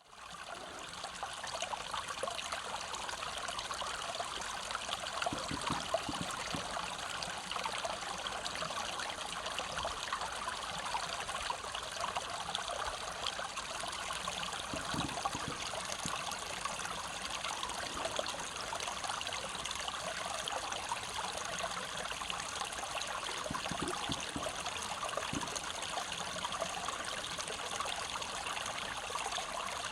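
Small mountain stream flowing steadily, its water babbling evenly with a few brief low gurgles.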